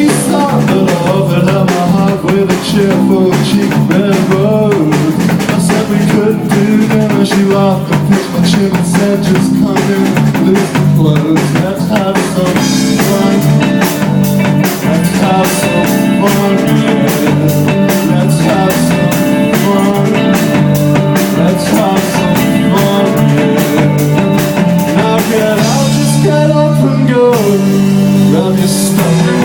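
Indie band playing live, loud and steady: drum kit and guitars driving a song.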